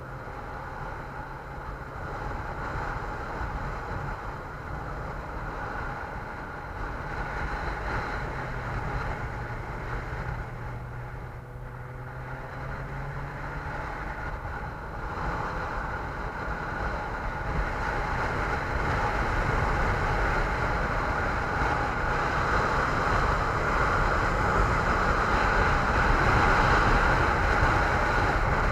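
A vehicle on the move: a steady low engine tone under road and wind noise, growing louder through the second half as speed builds.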